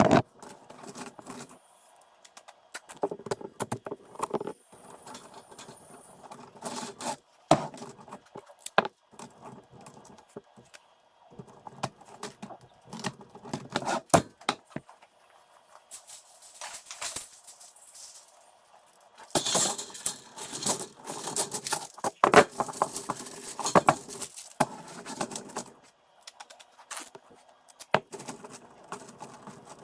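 Thin sheet-metal duct being handled and worked: many light metallic clinks and knocks, with two louder stretches of scraping about halfway through and again a little later.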